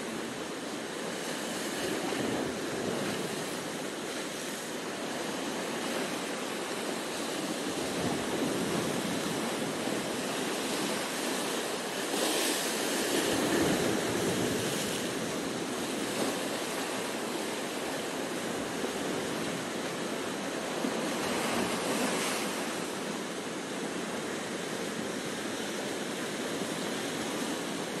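Sea surf breaking and washing over dark coastal rocks: a continuous rushing that swells with each wave, loudest about halfway through.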